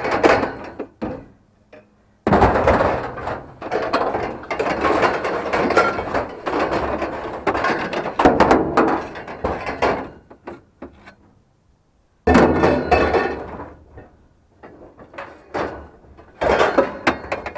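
Scrap metal being handled and shifted: loud metallic rattling and scraping, one long stretch of about eight seconds, then two shorter bursts.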